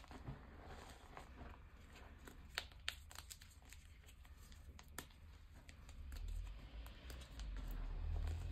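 Hands crumbling and crushing reformed gym chalk pieces into loose chalk powder: a run of small dry crackles with a few sharper snaps, turning to a denser, powdery rubbing near the end.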